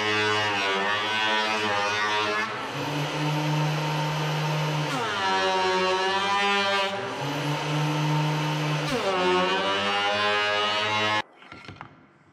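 Benchtop thickness planer running with a steady pitched whine that sags and recovers three times as boards feed through and load the motor. It stops abruptly near the end, leaving a few faint taps.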